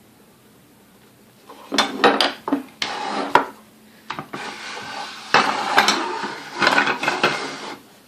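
Metal parts of a vintage Sunbeam Mixmaster being handled on a workbench: clattering knocks and rubbing scrapes, starting about a second and a half in and running in two stretches to near the end.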